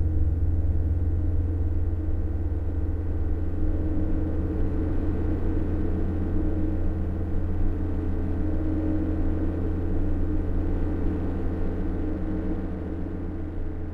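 Experimental noise-drone music: a heavy, steady low rumble under a dense cluster of held tones, thinning slightly near the end.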